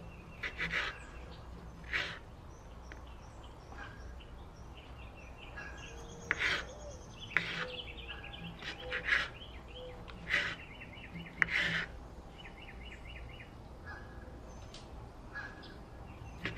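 A knife slicing through sausage and striking a wooden cutting board: about ten sharp cuts at irregular intervals, with birds chirping throughout.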